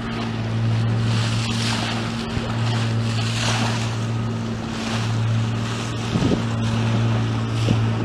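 Motor of a small wooden fishing boat running at a steady, even hum while under way. Wind hisses on the microphone and water rushes along the hull.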